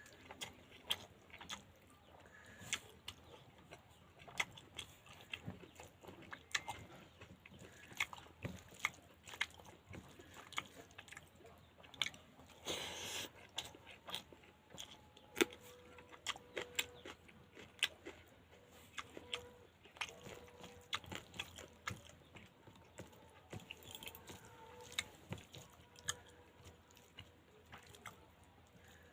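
Close-up eating sounds of pangas fish curry: chewing and wet mouth smacks, irregular clicks several times a second, with a louder noisy rush about thirteen seconds in.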